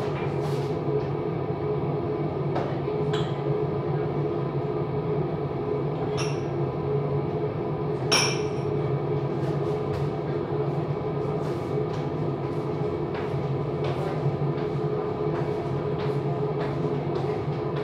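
Steady low mechanical hum with scattered light clinks and knocks of kitchenware being handled in the cupboards; the loudest is a ringing clink about eight seconds in.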